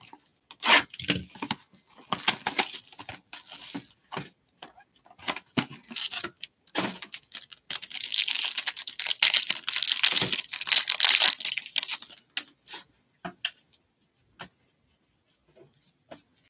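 A cardboard trading-card box opened and handled, with scattered crackles and taps. About eight seconds in, a foil card-pack wrapper is crinkled and torn open for several seconds. After that come a few faint taps as the cards are taken out.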